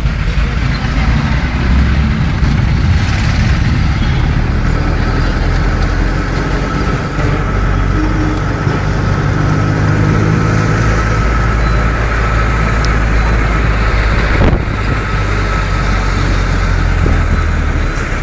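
Engine and road noise of a moving vehicle heard from on board: a loud, steady low drone, with a single sharp knock about three-quarters of the way through.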